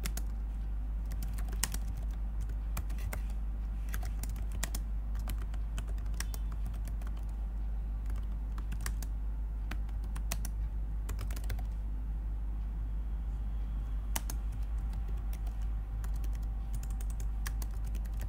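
Typing on a computer keyboard: irregular runs of key clicks, with a short lull about two-thirds of the way through, over a steady low hum.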